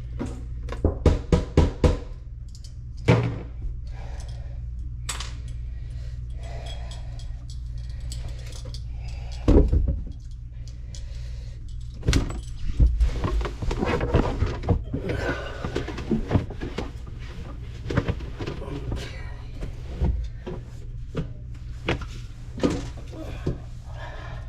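Irregular knocks, clunks and rattles of plumbing parts being handled inside a kitchen sink cabinet, with a few heavier thuds, over a steady low hum.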